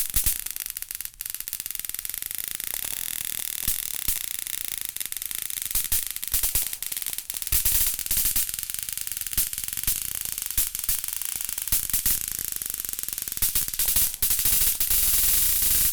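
Electric bug zapper with a steady high buzzing hiss, broken by sharp snapping zaps at irregular intervals, several in quick clusters, as insects strike the charged grid. A longer, louder crackling zap comes near the end.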